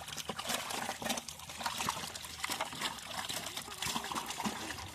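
Shallow pond water splashing and trickling, with many small irregular splashes and drips.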